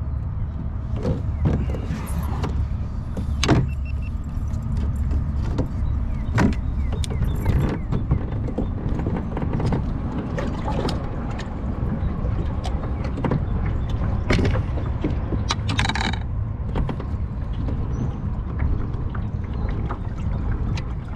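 Fishing gear being handled in a kayak: scattered knocks and clicks of a rod, reel and landing net against the hull, over a steady low rumble. A brief higher-pitched sound comes about two-thirds of the way through.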